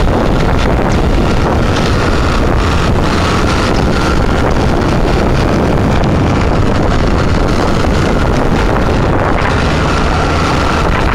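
Loud, steady wind rumble on the microphone together with the running of a moving vehicle pacing alongside trotting horses.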